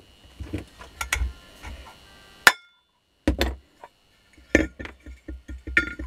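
Metal parts of a disassembled vacuum cleaner motor clinking and knocking as they are handled and set down on a workbench, with one sharp ringing clink about two and a half seconds in.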